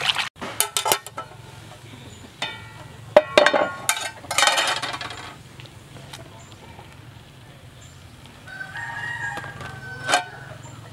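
A rooster crowing loudly about three seconds in, and again more quietly near the end, with a few sharp clicks at the very start.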